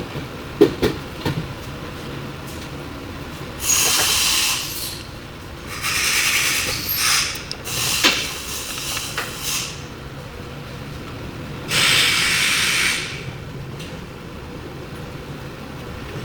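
Aerosol brake cleaner sprayed in four short hissing bursts of about a second each, with a few light metallic clicks and knocks near the start.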